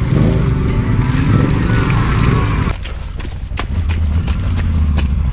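Off-road vehicle engine running under throttle, then dropping suddenly to a low idle about two and a half seconds in, with scattered knocks and rattles as the machine slows.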